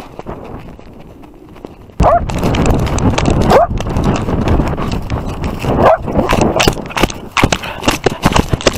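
A dog running flat out, heard from a camera strapped to its body. It is quiet at first, then about two seconds in it turns suddenly loud: a rapid run of paw thumps and jolts of the camera, with rushing air and a few short whining cries.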